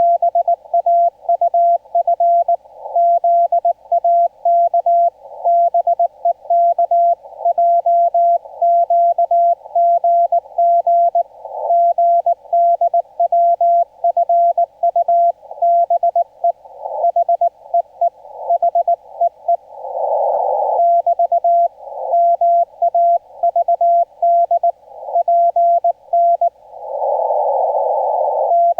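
Korean Morse code sent on a single steady tone, keyed on and off in a fast run of dots and dashes. Hiss in a narrow band around the tone fills the gaps between elements, as through a transceiver's narrow CW filter, with longer stretches of hiss about 20 seconds in and near the end.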